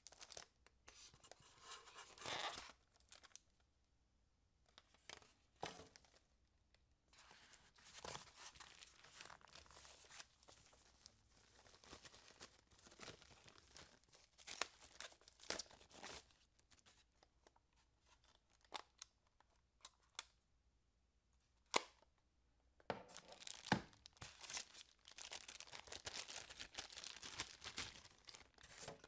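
Plastic bags and styrofoam packing inserts rustling and crinkling in irregular spells as items are lifted out of a box, with quiet gaps between them. There are a few sharp clicks or knocks, and a denser stretch of rustling near the end.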